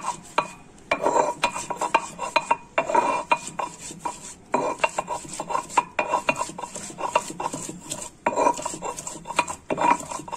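Hand-held stone muller (batta) knocking and scraping against a flat stone grinding slab (sil) as garlic cloves are crushed, in irregular runs of quick strokes with short pauses.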